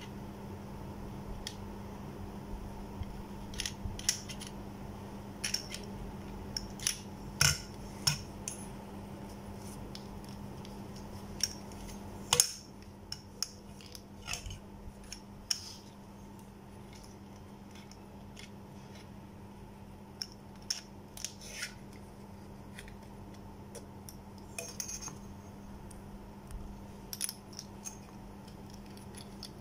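Scattered clicks and taps of plastic and metal torch parts being handled and fitted together, the battery holder going into the torch body; the loudest click comes about twelve seconds in. A steady low hum runs underneath.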